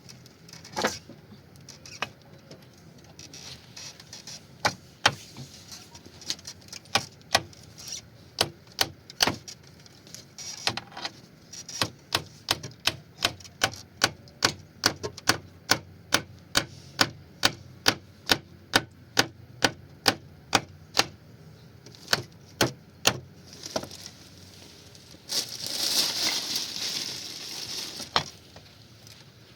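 A long run of sharp knocks, like strikes of a hammer or similar tool on wood, about two a second and growing more regular. This is followed near the end by a few seconds of rustling or scraping.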